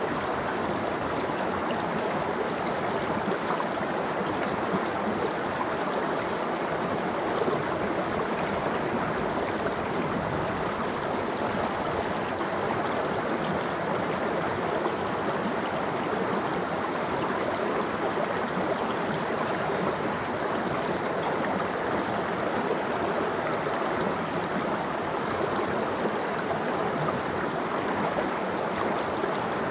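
Mountain stream flowing steadily over rocks, a continuous rushing and gurgling of water.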